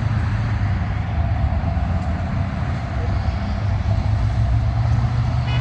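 Steady road traffic noise: a dense, even rumble of running vehicles.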